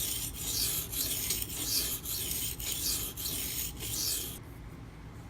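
Maxamet steel knife blade scraped back and forth across a freshly conditioned, coarse Gritomatic silicon carbide sharpening stone, about three gritty strokes a second. The stone's surface is very aggressive and not smooth at all. The strokes stop about four seconds in.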